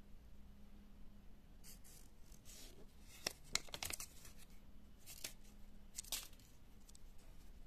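Thin paper leaflet from a Kinder Surprise egg rustling and crackling between fingers as it is handled and turned over: faint scattered crinkles with a few sharper crackles around the middle.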